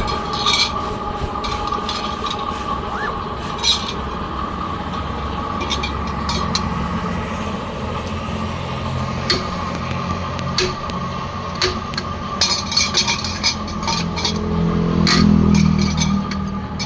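Scattered metallic clinks and scrapes over a steady background hum with a faint constant whine. A louder low engine rumble swells about fifteen seconds in.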